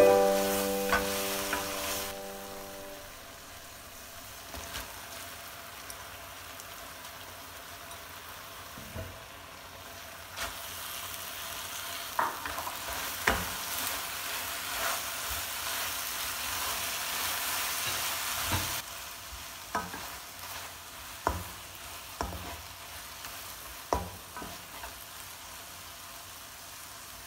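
Chicken, fishballs, bean sprouts and pak choy sizzling in a nonstick wok as they are stir-fried with a wooden spatula, which knocks and scrapes against the pan now and then. Soft piano notes fade out in the first couple of seconds.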